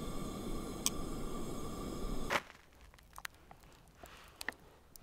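A camp stove burner hissing steadily under a pan of boiling water, with one sharp metal click about a second in as tongs touch the pan. About halfway through the hiss cuts off abruptly, leaving quiet with a few faint clicks.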